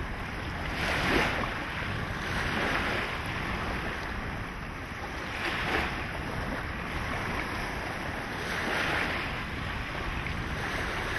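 Small waves lapping and washing up a pebbly sand shore, the hiss swelling and ebbing every few seconds, with a sharper splash about a second in and another near six seconds.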